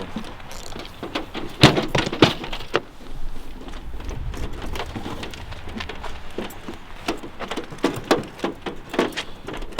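Metal clicks, rattles and knocks of a key being jiggled and forced in a stubborn trailer lock that won't turn, with a couple of louder knocks about two seconds in.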